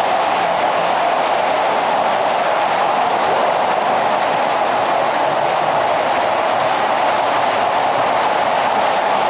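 Steady, unbroken rush of water flowing and falling inside a limestone cave.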